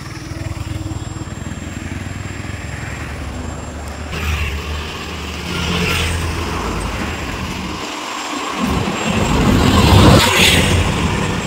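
Motor vehicle traffic: a low engine rumble runs steadily and swells to its loudest about ten seconds in, as a vehicle passes close by.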